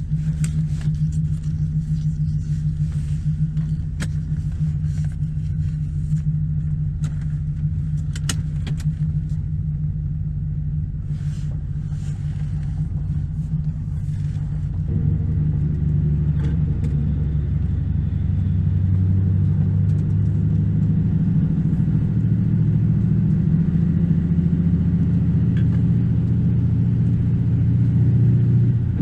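A 1996 Camaro Z28's LT1 V8 runs steadily with a low rumble, and light clicks and knocks sound over it in the first half. About halfway through, the engine note changes, deepens and grows louder, and holds there.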